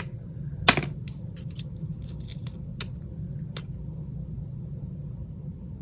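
Small tools and phone parts being handled on a work surface: one sharp click just under a second in, then several faint ticks, over a steady low hum.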